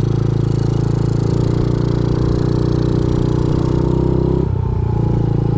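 Honda CRF50F pit bike's small air-cooled four-stroke single-cylinder engine running steadily under the rider. The engine note dips briefly about four and a half seconds in, then picks back up.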